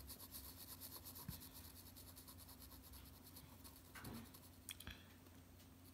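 Faint, rhythmic scratching of a graphite pencil on drawing paper: short back-and-forth shading strokes made with the side of the lead.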